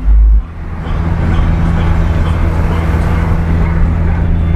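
Heavy deep bass from a car sound system cuts off abruptly about half a second in. A steady low engine hum from an idling car runs on after it.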